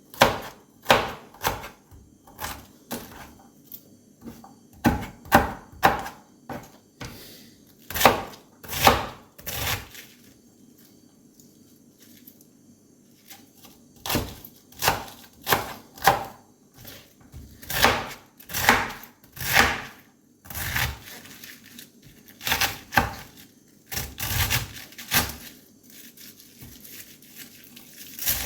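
Knife chopping on a cutting board, about two sharp strokes a second in uneven runs, with a pause of a few seconds near the middle.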